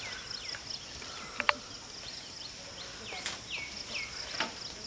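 Insects in the surrounding vegetation keep up a steady high-pitched buzz with a pulsing trill over it. A bird repeats short falling chirps every half second or so. A sharp click about a second and a half in is the loudest sound, with another faint click near 3 seconds.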